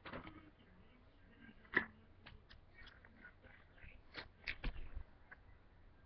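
Scattered light clicks and taps close to the microphone. The sharpest comes a little under two seconds in, and a quick cluster with a brief dull thump comes around four and a half seconds in.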